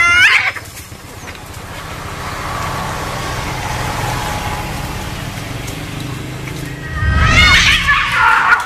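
Cats fighting: a loud screeching yowl at the start, a quieter stretch while they grapple, then several more loud screeching yowls near the end.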